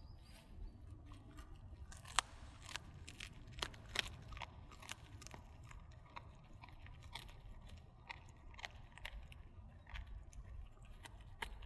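A dog chewing dried duck bones: irregular sharp crunches and cracks of bone between its teeth, several a second, loudest about two seconds in, about four seconds in and near the end.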